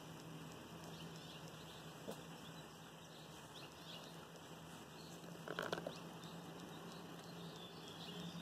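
Quiet outdoor ambience with a steady low hum, and one short, sharper sound about five and a half seconds in.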